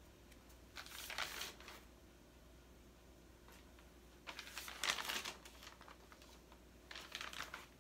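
Paper rustling as notebook pages are handled and turned, in three short bursts.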